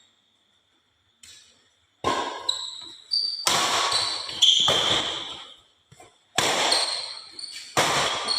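Badminton rally: sharp racket strikes on the shuttlecock, each ringing on in the hall, with high shoe squeaks on the court floor. It starts about two seconds in, after a near-silent opening, with about six strikes.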